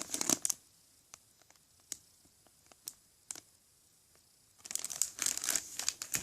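Crinkly toy packaging rustling as it is handled: a short burst of crinkling at the start, a near-quiet stretch with a few light clicks and taps, then steady rustling and crinkling again near the end.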